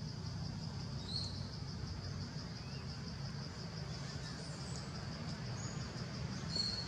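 Outdoor ambience of insects chirring steadily in a high, evenly pulsing drone, over a low steady rumble, with two brief high chirps, about a second in and near the end.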